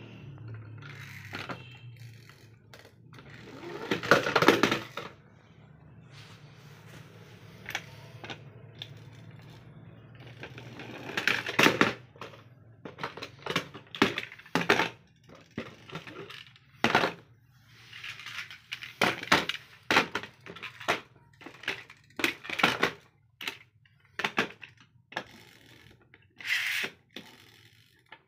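Die-cast metal toy cars clinking and clacking as they are handled, set down on a plastic table top, knocked against each other and dropped into the table's plastic side tray. Irregular sharp knocks, a few at first and then coming thick and fast from about halfway through.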